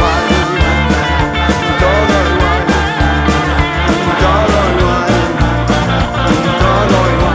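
Instrumental passage of a rock band song, with a steady drum beat and a prominent bass under sustained melodic instruments.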